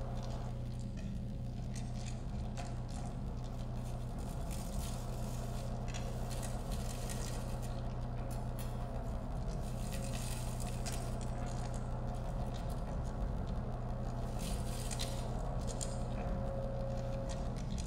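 Improvised electronic performance: a steady low electronic drone with a faint held tone above it, under irregular scraping and crackling textures from sound objects being worked by hand.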